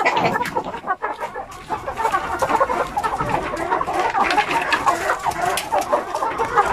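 A pen of young Basilan and Shamo native chickens clucking and calling over one another in a busy, continuous chatter. It thins out briefly about a second in, then grows denser.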